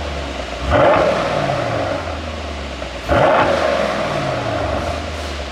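Mercedes-AMG E63's twin-turbo V8 blipped from idle twice, about two seconds apart, each rev falling away slowly with exhaust pops and crackles from a pop-and-crackle tune.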